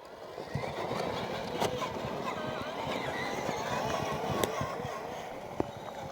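Electric motor and gearbox whine of an RC scale 6x6 truck crawling over rough ground, its pitch wavering up and down with the throttle, over a rough crackle with a few sharp clicks.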